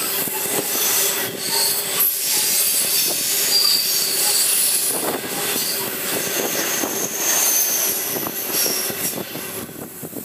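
Coal hopper wagons rolling past on a curve, wheels squealing against the rails over a steady clatter of wheels on track. The sound fades as the last wagon goes by near the end.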